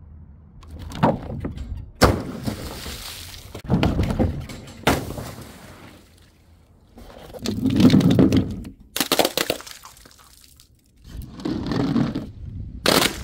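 Glass bottles breaking one after another: several sharp crashes of shattering glass, some with heavier thuds.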